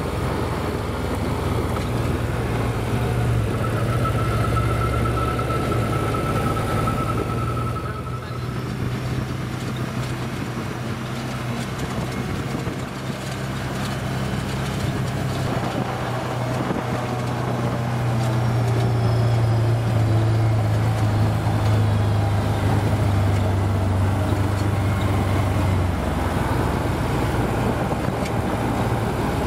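Side-by-side ATV's engine running at a steady pace on a gravel trail: a constant low drone with tyre and gravel noise. A faint high whine sounds for a few seconds about three seconds in.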